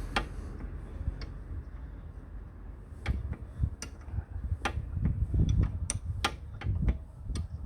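Metal open-ended spanners clicking and clinking against a brake caliper's slider-pin bolt as it is tightened: a dozen or so sharp, irregularly spaced clicks, starting about three seconds in.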